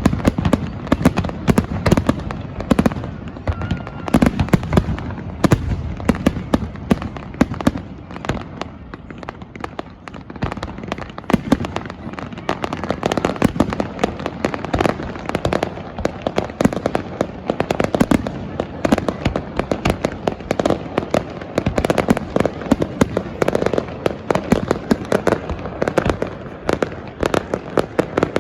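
Fireworks going off in a dense, continuous barrage of bangs and crackles, many a second, easing a little for a few seconds partway through.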